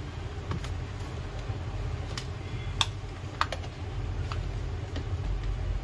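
Scattered plastic clicks and taps as the battery is taken out of a Compaq laptop's plastic case and a plastic pry tool works at it, about six in all, the sharpest near three seconds in, over a steady low hum.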